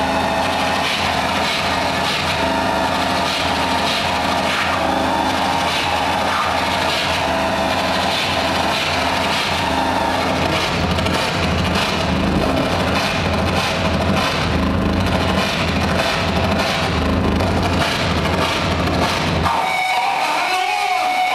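Harsh noise music from analogue synthesizers and effects pedals: a loud, dense wall of distorted noise over a pulsing low rumble. Near the end the low rumble cuts out suddenly, leaving thinner high squeals and gliding tones.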